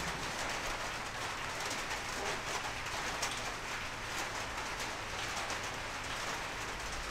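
Steady hissing noise with faint scattered ticks.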